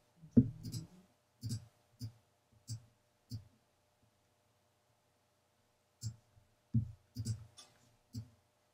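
Computer mouse clicking: about a dozen short, sharp clicks in two runs, with a pause of about two and a half seconds in the middle. The loudest click comes just after the start.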